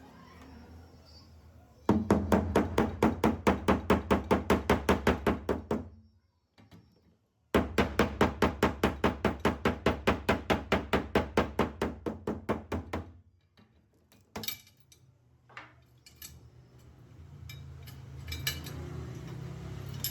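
A small hammer or tap-down tool tapping rapidly on a car door's sheet metal in paintless dent repair, about four even taps a second in two long runs separated by a short pause. A few single clicks of tools follow.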